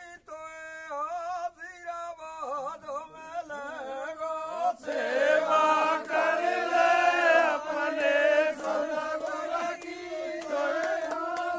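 Men chanting a devotional song to their guru. One voice leads at first, then about five seconds in the group joins in loudly, with some hand-clapping.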